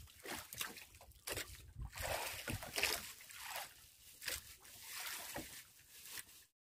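Seawater sloshing and splashing irregularly against the hull of a small wooden outrigger boat, over a low rumble.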